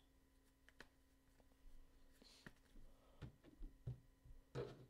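Near silence: room tone with a faint steady hum and a few scattered faint clicks and taps, a little louder near the end.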